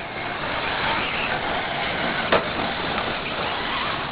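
Battery-electric 4x4 short course RC trucks racing, a steady rush of motor whine and tyres on dirt, with one sharp knock just over two seconds in.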